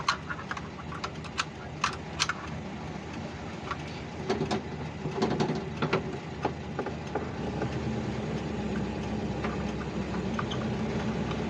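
Volkswagen Kombi van on the move, its engine running steadily with irregular clicks and knocks over it, most of them in the first couple of seconds and again midway. It is the strange noise the owner takes for something loose under the van, which a mechanic later puts down to a leaking exhaust manifold.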